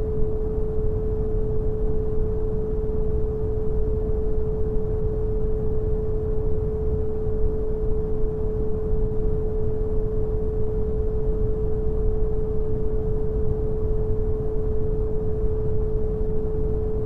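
Brown noise, a steady low hiss weighted toward the bass, with a pure 432 Hz sine tone held unchanging over it.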